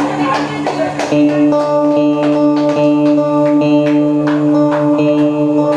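Instrumental backing music. About a second in it settles into a steady held low note, with sharp notes struck over it about twice a second.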